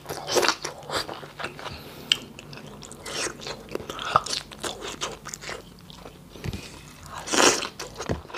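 Close-miked eating sounds of a person biting and chewing boiled vegetables: irregular wet crunches and mouth smacks, loudest about seven seconds in.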